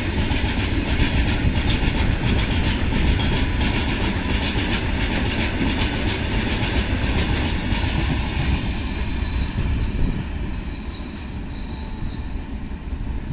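Freight train of covered cement hopper wagons rolling past, wheels clattering over the rails. The noise fades about ten seconds in as the end of the train passes and draws away.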